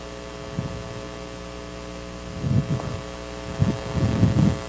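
Steady electrical mains hum, with a few soft low thumps about two and a half and four seconds in.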